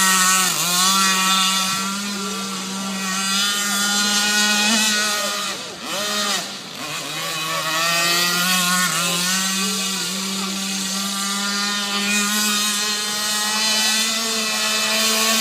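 Radio-controlled model boat's small motor running at a high, steady pitch. It eases off briefly about six seconds in, then picks up again.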